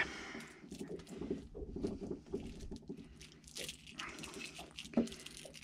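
A hooked gurnard being held in a cloth and unhooked by hand: faint, irregular clicking, rubbing and scuffling of fish, cloth and hook, with one louder knock about five seconds in.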